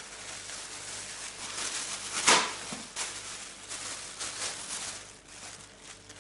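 Thin plastic food bag rustling and crinkling as it is handled and opened by hand, with one louder crackle a little over two seconds in.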